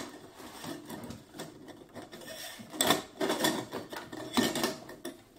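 Irregular rubbing, scraping and light knocks as parts of a diesel heater kit are handled and lifted out of their packed case.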